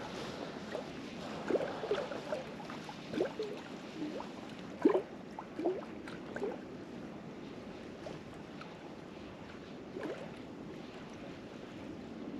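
Small waves lapping and gurgling at the edge of a loch: a handful of brief soft splashes over a steady background hiss.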